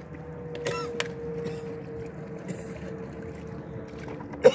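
A cat meows in short cries, faintly about a second in and loudly once near the end, over a steady hum.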